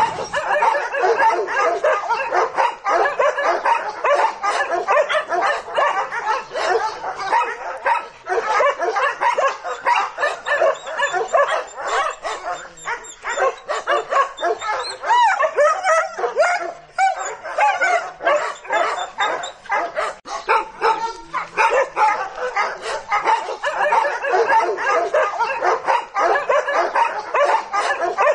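Several dogs barking and yelping in a dense, near-constant din, with a few brief lulls.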